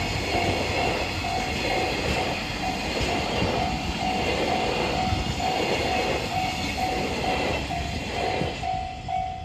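Freight train wagons rolling past a Japanese level crossing, a steady rumble with wheels clattering over rail joints, while the crossing's warning bell rings on and off about twice a second. Near the end the train noise drops away as the last wagons pass, and the bell keeps ringing.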